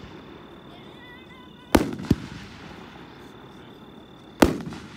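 A 12-shot 500-gram consumer firework cake firing. A loud bang comes about two seconds in, followed closely by a smaller pop, and another loud bang comes near the end, each trailing off in a short echoing rumble.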